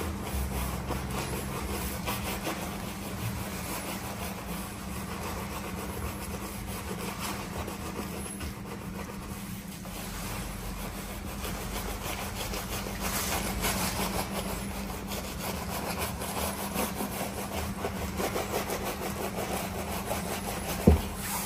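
Small detailing brush scrubbing a foamy car tailgate around the badge and handle recess: quick, rasping back-and-forth rubbing strokes over a steady low hum. One sharp knock near the end.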